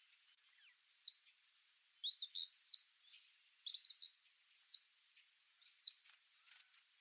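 Eastern phoebe singing: short, high notes that slide sharply downward, repeated about once a second, with a rougher two-part phrase about two seconds in.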